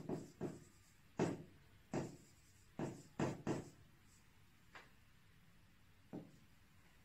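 Pen tapping and clicking against a drawing surface while a diagram is drawn: about nine light, short taps at uneven intervals.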